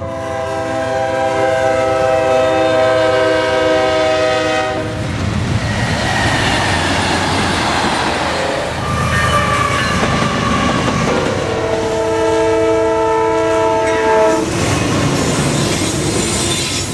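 Diesel locomotive air horns: a long multi-note horn chord for about the first five seconds, then the rumble and wheel clatter of a passing train, then a second long horn blast starting about eleven seconds in, followed by more train rumble.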